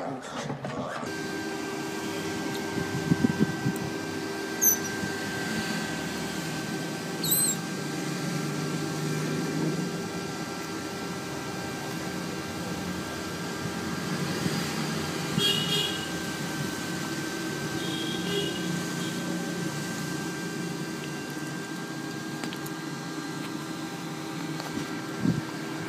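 Otter giving a few brief, high-pitched squeaks and chirps over a steady hum.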